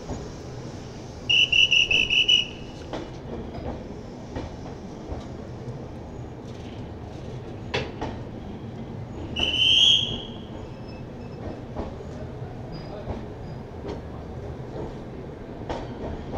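Passenger train rolling slowly into the platform: a steady low rumble with scattered clanks. Two short, high-pitched metallic squeals stand out, a pulsing one about a second in and a slightly rising one near ten seconds.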